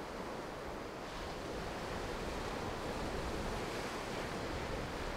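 Sea surf washing in a steady rush of noise, a little brighter from about a second in.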